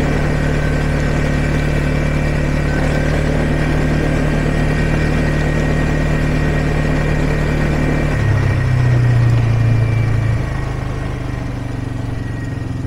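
ATV engine running steadily under way. About eight seconds in, the engine note shifts and gets louder for a couple of seconds, then settles lower and quieter.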